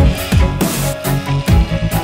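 Electronic soundtrack music with a fast-pulsing heavy bass and repeated punchy drum hits.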